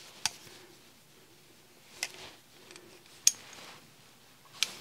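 A few short, sharp clicks and light handling noises from a pair of Wiha insulated adjustable water pump pliers being turned and worked in the hands, spaced a second or so apart.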